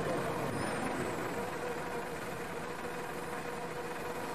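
A machine running steadily, with a constant faint hum under an even mechanical noise.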